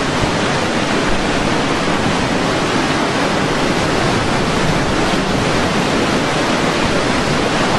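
Hurricane wind and surf: a loud, steady rush of noise with no breaks.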